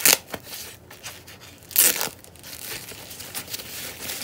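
White protective wrapping around a new wallet being pulled and torn off by hand, crinkling. There are two louder rips, one right at the start and one about two seconds in.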